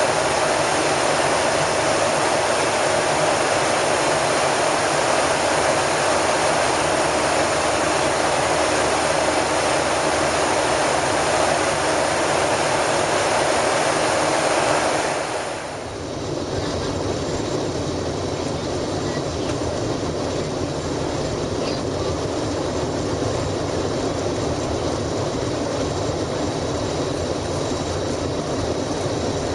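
Steady cabin noise of a Boeing 737-800 in flight, the rush of airflow and engines heard from inside the cabin. About halfway through it changes abruptly to a duller, lower rumble with much less hiss.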